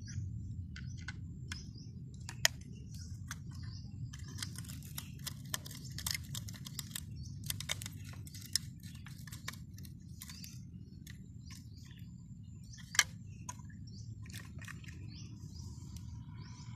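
Small plastic toy parts clicking and tapping as they are handled and worked with a screwdriver, with two sharp, louder clicks, about two and a half seconds in and again near thirteen seconds, over a steady low rumble.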